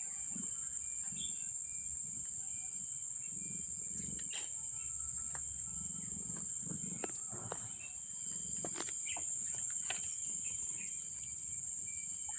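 A steady high-pitched hiss or chirring, with scattered faint clicks and soft low thumps.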